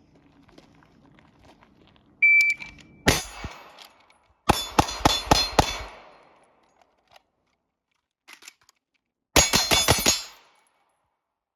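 Electronic shot-timer beep, then a single gunshot about a second later. Two rapid strings of about five or six shots follow, separated by a pause of a few seconds, the pause of a reload or weapon transition in a timed drill.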